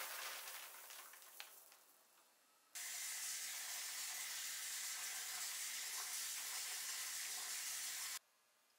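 Kitchen faucet running a steady stream of water into a bowl of rice as it is rinsed by hand, a steady hiss that starts abruptly about three seconds in and cuts off near the end. Before it, a fading ring dies away.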